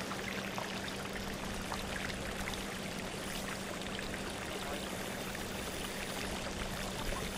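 Steady rush and splash of running water, with faint fine ticks through it and a low steady hum underneath.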